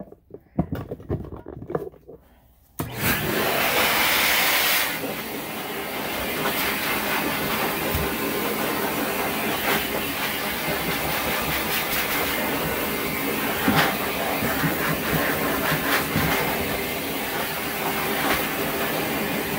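A dog-grooming blow dryer switched on about three seconds in, after a few light knocks, then blowing air steadily. It is slightly louder for its first two seconds.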